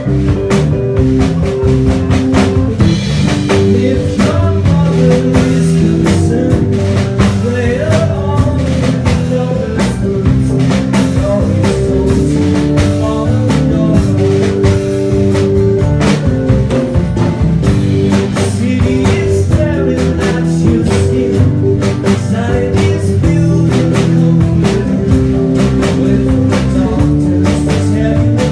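Live rock band playing a song: guitar, bass and drum kit with a steady beat.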